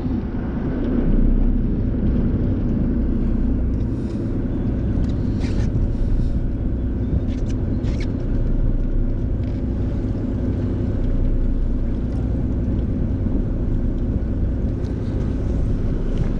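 Steady low hum of a fishing boat's engine running, with a few faint ticks a few seconds in.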